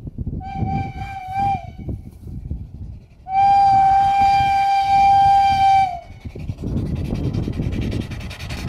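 Homemade steam motorcycle's steam whistle blowing a single steady note: brief toots, then one long blast of about two and a half seconds, over the irregular chuffing of its steam engine. Near the end the bike passes close with a rushing hiss.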